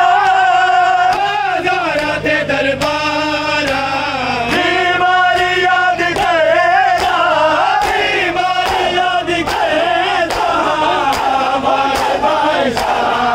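A group of men chanting a Punjabi noha, a mourning lament, over a steady beat of open-handed chest-beating (matam) slaps, about one or two a second.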